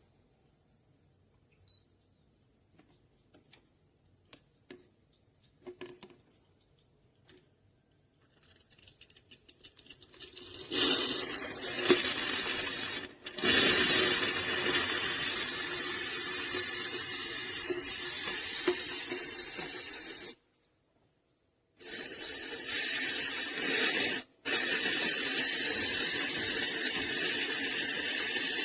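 Espresso machine steam wand hissing loudly and steadily, as when frothing milk. It starts after a few light clicks and handling sounds, stops suddenly about two-thirds of the way in, then resumes.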